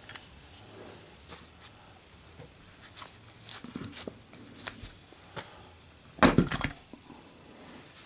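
A lit brass-cased Zippo lighter is dropped onto a table and lands with a short metallic clatter as it hits and bounces, about six seconds in, in a lit drop test it passes, staying lit. Faint handling clicks come before it.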